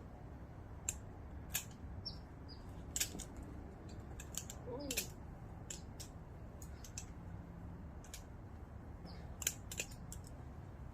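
Balisong (butterfly knife) being flipped: its handles and blade clicking and clacking together at an irregular pace, a dozen or so sharp clicks.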